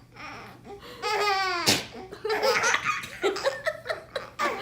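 A baby laughing in a string of separate laughs, with a short sharp burst a little under two seconds in.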